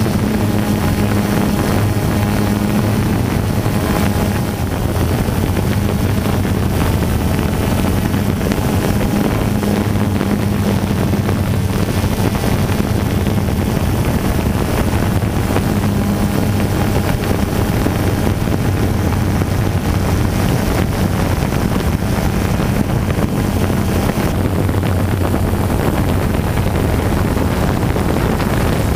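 Steady low motor hum with wind noise on the microphone, as from a camera moving fast through the air.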